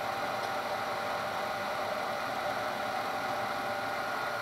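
Milling machine's motor spinning a Denso alternator on the bench under a resistor load test: a steady running hum with steady high whining tones.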